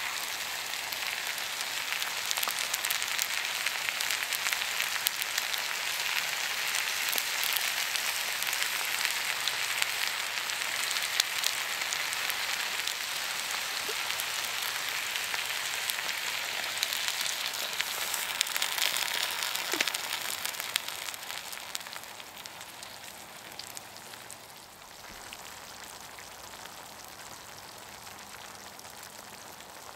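Chicken, vegetables and chopped tomatoes sizzling in a pan over a campfire: a steady hiss full of fine crackles. About three-quarters of the way through it drops to a quieter simmer.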